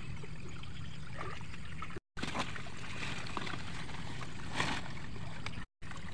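Shallow floodwater in a rice paddy sloshing and trickling as someone wades and moves palm fronds in it, over a steady low rumble. The sound drops out abruptly twice.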